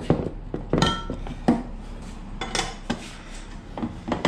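Yoshimura stainless steel exhaust mid pipe clinking and scraping against the header and frame as it is worked into place by hand: a string of sharp metal clinks, one about a second in ringing briefly.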